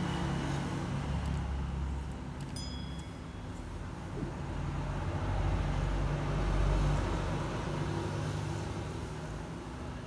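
Low rumble of passing road traffic, swelling to its loudest about two-thirds of the way through, with a few faint clicks and short high chirps a little before the middle.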